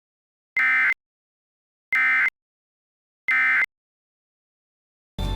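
Emergency Alert System end-of-message data signal: three identical short buzzing digital data bursts about a second apart, with dead silence between them, closing the alert.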